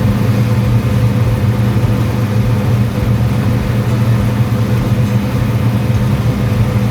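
Farm machine's engine running steadily at an even speed, a constant low hum.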